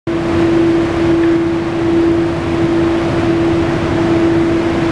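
A steady machine hum: one constant mid-pitched tone over an even rushing noise, unchanging throughout.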